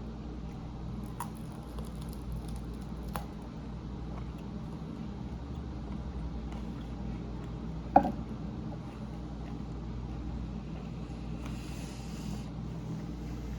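A person chewing food, with soft wet mouth sounds and a few light clicks, and one sharper knock about eight seconds in, over a steady low hum.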